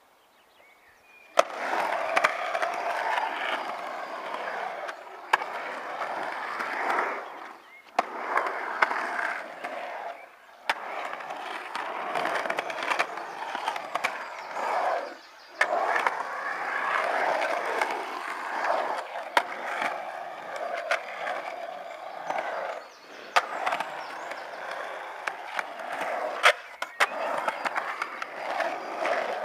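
Skateboard rolling and carving around a concrete bowl: a steady wheel-rolling noise that swells and fades with each pass, starting about a second in, punctuated by sharp clacks of the board and trucks knocking against the concrete.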